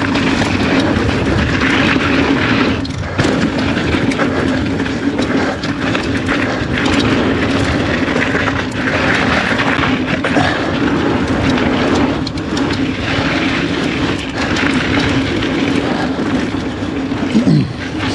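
Mountain bike rolling fast down dirt singletrack: knobby Maxxis tyres rumbling over dirt and gravel, with a steady hum and scattered knocks as the bike goes over bumps.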